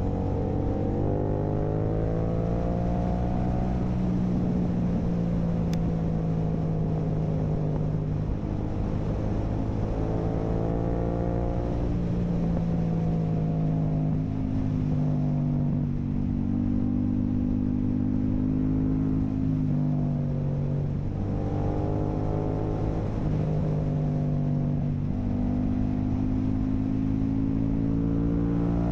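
Yamaha YZF-R7's 689 cc parallel-twin engine through an Akrapovic full carbon racing exhaust, revving under acceleration. Its pitch climbs and drops back several times as the gears change.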